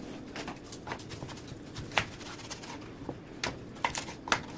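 Kitchen knife slicing through a zucchini and knocking on a cutting board: a few sharp, irregular knocks, the clearest about two seconds in and again near the end.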